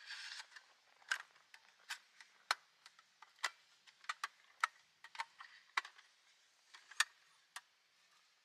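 Small aluminium folding camp table being folded up by hand: its legs and hinges give scattered light metallic clicks and clinks, about a dozen spread unevenly over several seconds.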